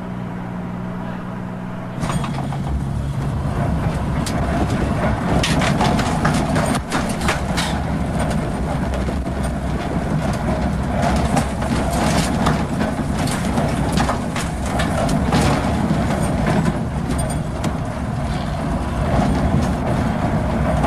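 Arrow Dynamics pipeline roller coaster prototype train running along its steel track with passengers aboard: a steady rumble of wheels with rattles and clatter throughout. It starts about two seconds in, after a low steady hum.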